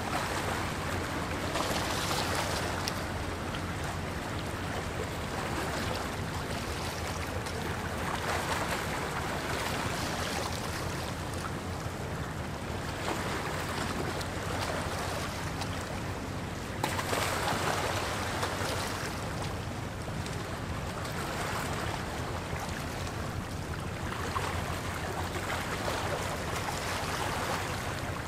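Small waves washing against a rocky shoreline, swelling and easing every several seconds over a steady low rumble.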